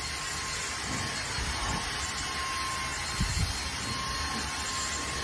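Cordless handheld vacuum cleaner running steadily with a brush attachment, a constant hiss with a whining motor tone, as it is drawn over a cat's fur; a low thump about three seconds in.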